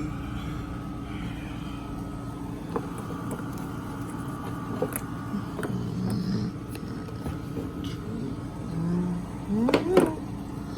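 A steady mechanical hum with scattered, indistinct voices over it, and a brief rising-falling voice near the end.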